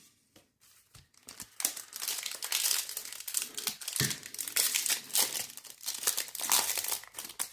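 Foil wrapper of a trading-card pack crinkling as it is torn open and handled. The crackling starts about a second in and keeps on, dense and uneven.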